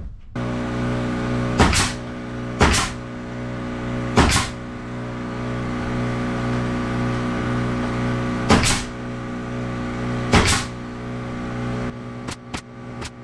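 An air compressor's motor running steadily with a droning hum, then cutting off abruptly near the end. Over it a pneumatic nail gun fires five sharp shots a second or more apart, nailing trim onto a wooden shed door, followed by a few lighter knocks.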